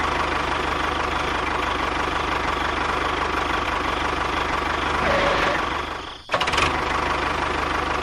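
Tractor engine running steadily at idle with a fast, even beat. It cuts out briefly about six seconds in and comes straight back.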